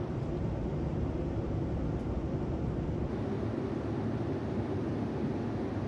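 Steady cabin noise of a Boeing 787-10 airliner in flight: an even, deep rush of engine and airflow noise that does not change.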